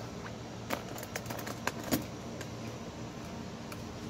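Wooden spoon stirring a thick, sticky cornstarch-and-corn pudding mixture in a pot, knocking against the pot in irregular light clicks during the first two and a half seconds, then quieter. A steady low hum runs underneath.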